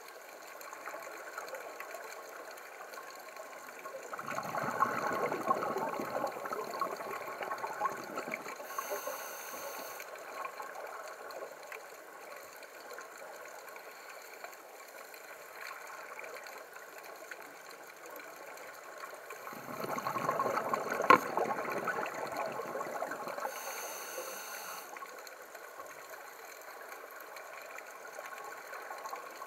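Scuba diver's regulator breathing underwater: two long bouts of bubbling exhalation, about four seconds in and again around twenty seconds in. Each ends with a short high hiss, over a steady low hiss.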